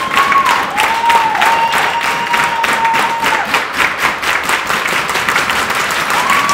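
Dance audience clapping together in a steady rhythm, about three claps a second. Over the clapping runs a high held tone that dips and glides a few times.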